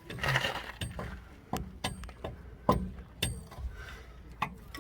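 Irregular metallic clinks and knocks, about five sharp ones, as a new front shock absorber and its mounting hardware are handled and fitted into the lower mount.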